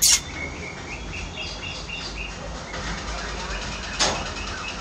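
A small bird chirping in quick runs of short, high chirps, with a sharp click at the start and another about four seconds in.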